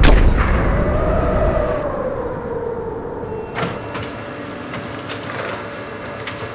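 A single rifle shot at the start, with a low rumble that fades over about two seconds, under a held tone that slowly wavers in pitch. A smaller sharp click comes about three and a half seconds in.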